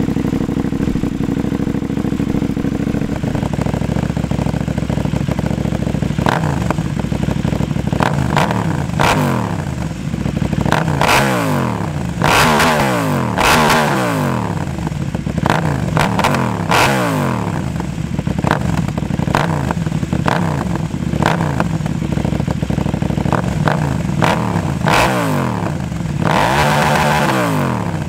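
KTM Duke parallel-twin engine through an Austin Racing RS22 de-cat underseat exhaust, loud. It idles at first, then is blipped over and over on the stand, each rev climbing and dropping back to idle, with a longer held rev near the end.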